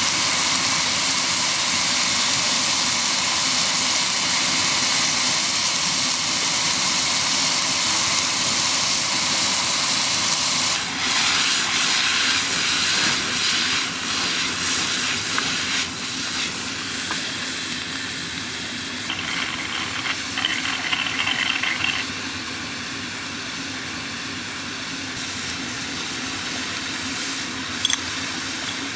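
Minced beef and onions sizzling in a large pan over a wood fire: a steady, dense frying hiss that softens after about sixteen seconds and again a few seconds later.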